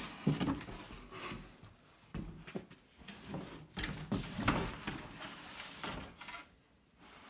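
Cardboard being pulled apart and shifted around: irregular rustling, scraping and knocks that die down near the end.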